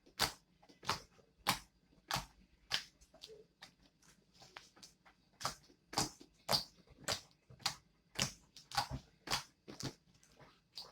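Homemade glue slime being squeezed and pressed by hand, making a run of sharp wet clicks and pops, about two a second.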